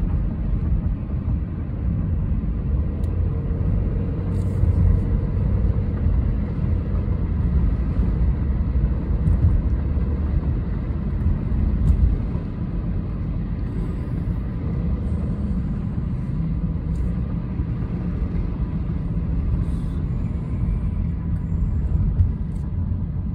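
Steady low rumble of road and engine noise inside a moving car's cabin, easing slightly about halfway through.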